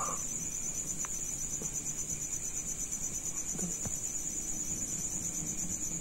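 Crickets chirring steadily at night: a continuous high-pitched trill with a fine, rapid pulse.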